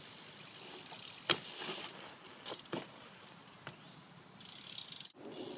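BMX bike being ridden on flat ground: a few sharp knocks, one loud and the rest lighter, between stretches of fast ticking from the rear hub. The sound breaks off abruptly about five seconds in.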